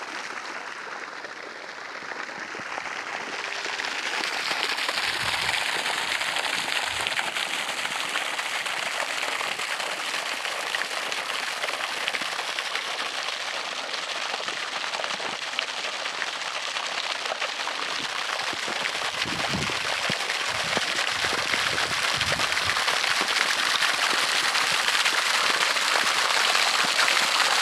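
Water from a pond aeration pump, sprayed into the air from a pipe and pattering back down like rain onto the open water in a hole in the ice. It is a steady splashing hiss that grows louder after the first few seconds.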